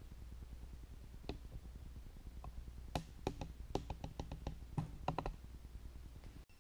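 A scatter of light, sharp clicks and taps, one about a second in and a quick run of them between about three and five seconds, over a low steady hum.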